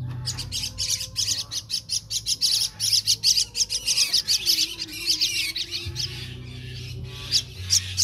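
Caged common myna birds giving a rapid run of harsh, high squawking calls, several a second, pausing about six seconds in and starting again near the end. A steady low hum lies underneath.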